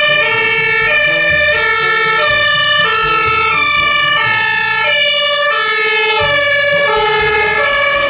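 Toy fire truck's electronic siren sound: a loud, steady, beeping tone hopping between several pitches in a repeating up-and-down pattern, with a low rumble underneath.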